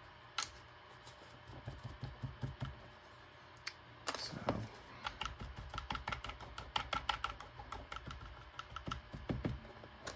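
Weathering paint being dabbed and wiped onto a 3D-printed plastic walkie-talkie shell with a brush and a small rag: a sharp click about half a second in, then a long run of quick little taps and scuffs, busiest in the second half.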